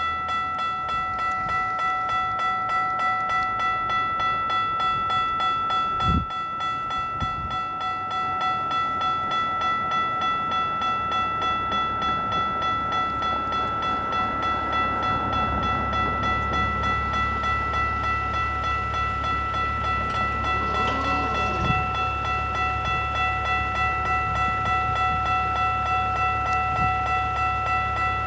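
Railway level-crossing warning bell ringing steadily, pulsing about twice a second. From about halfway through, the low rumble of a passing train builds under it.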